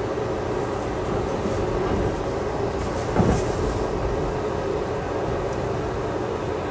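Amtrak passenger car rumbling along the rails, heard from inside the car as it rolls past the station platform on arrival. A single knock, with a brief hiss, comes about three seconds in.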